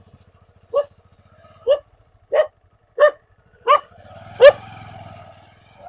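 A dog barking at arriving visitors: six short barks spaced under a second apart, the last, about four and a half seconds in, the loudest.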